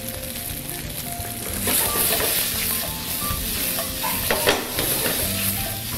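Sliced pre-cooked potatoes sizzling in a little olive oil in a frying pan, the sizzle growing louder about two seconds in. Near the end the pan is tossed, adding a brief clatter of the slices.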